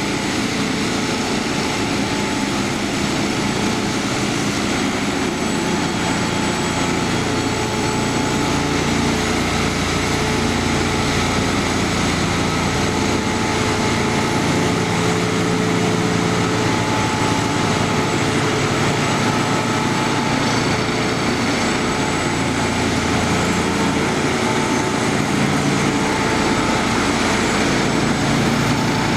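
Engines of railroad track-maintenance machines running steadily, several engine hums overlapping and drifting a little in pitch.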